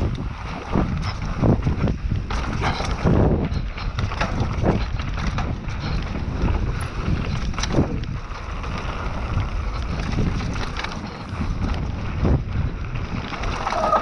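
Mountain bike ridden fast down dirt singletrack: wind rushing over the helmet camera's microphone, tyres rolling on the dirt, and frequent knocks and rattles as the bike goes over bumps and roots. A brief squeal near the end.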